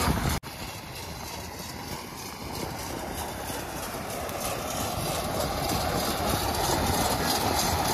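Vishal 435 combine harvester's engine running steadily, slowly growing louder. The sound cuts out for an instant about half a second in.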